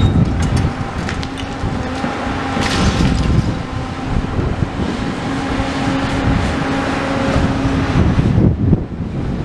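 Tracked demolition excavator working: the diesel engine and hydraulics run with a steady hum, while brickwork and masonry being pulled down crash and clatter in scattered knocks, with a louder rumble near the end.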